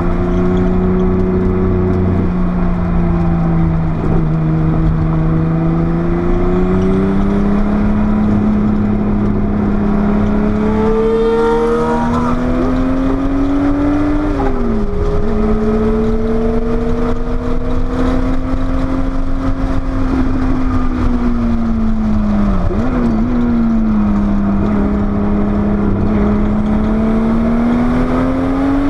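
Porsche 930 Turbo's air-cooled, turbocharged flat-six engine running hard under load, its pitch climbing slowly. Twice, near the middle and about three-quarters through, the pitch dips sharply and briefly before it climbs again.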